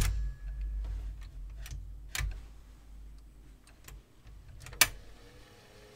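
TEAC A-103 cassette deck's mechanical transport keys being pressed and latching: a loud click at the start, then several lighter clicks over the next five seconds, with a low hum underneath.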